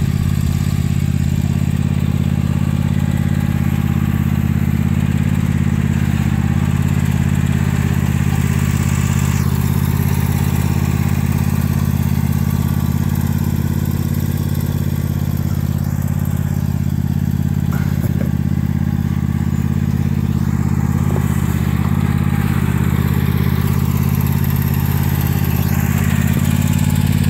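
Toro zero-turn riding mower's engine running steadily as the mower is driven over grass.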